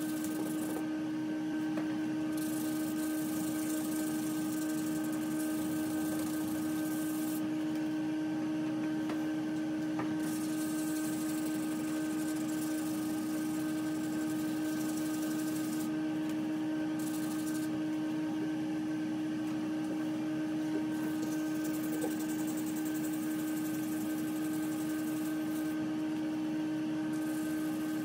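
A steady motor-like hum at one unchanging pitch, even in level throughout.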